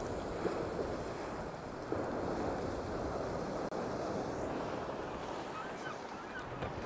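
Sea waves washing and breaking over shoreline rocks, a steady rushing surf, with wind buffeting the microphone.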